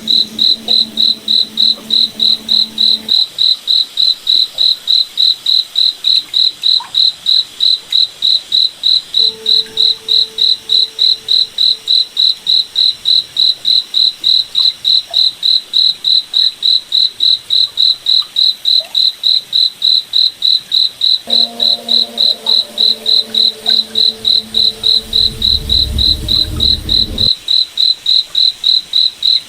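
A cricket chirping in a steady, even rhythm of about two to three high-pitched chirps a second. Underneath, a faint low hum comes and goes, and there is a brief low rumble near the end.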